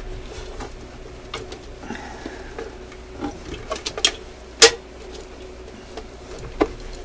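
Scattered clicks and light knocks from an Admiral suitcase record player's turntable platter as it is twisted and rocked on its spindle, stuck and not lifting free. The sharpest knock comes about four and a half seconds in.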